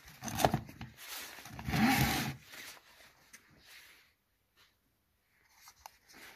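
Wooden Model T trembler coil boxes being handled and picked up off the floor: rubbing and scraping of wood with jacket-sleeve rustle, loudest in the first two seconds, then a few faint knocks.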